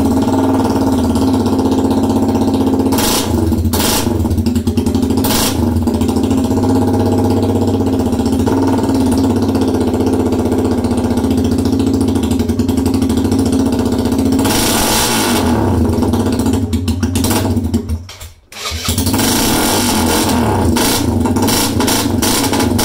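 Suzuki Van Van's single-cylinder four-stroke engine running through a full Black Widow exhaust with no silencer, a straight pipe, on which it runs poorly. It idles unevenly with a few throttle blips, and near the end the sound drops away almost to nothing for a moment before picking up again.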